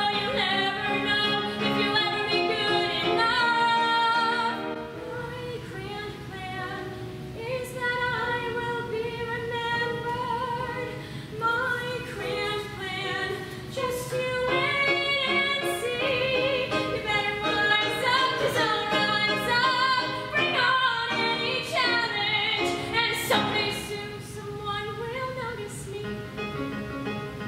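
A young female voice sings a musical-theatre solo in long, held phrases, accompanied by an electric keyboard.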